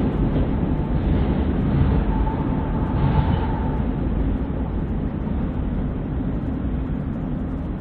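Freight train rolling past: a steady rumble of cars on the rails, with a faint thin squeal for about a second and a half midway. The rumble eases slightly toward the end.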